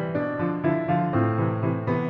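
Background music led by piano, a gentle melody of changing notes over sustained low tones.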